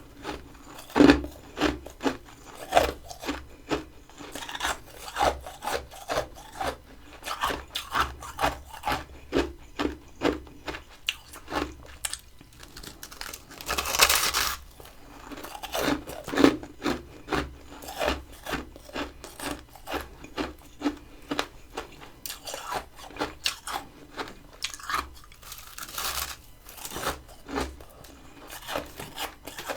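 Close-miked chewing of crunchy freezer frost: a steady run of short crunches, several a second, with a few louder bites standing out, one about a second in and others in the middle and near the end.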